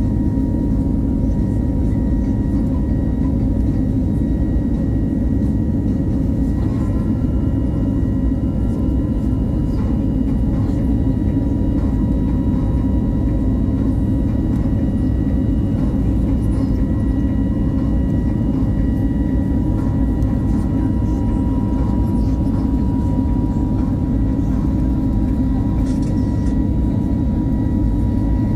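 Steady cabin roar of an Airbus A320neo jet airliner climbing after takeoff, heard from a window seat beside the engine, with faint steady high whining tones over the deep noise.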